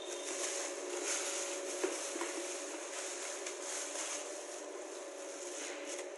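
Thin plastic produce bags crinkling and rustling as vegetables are handled, over a steady hum. There is one small knock about two seconds in.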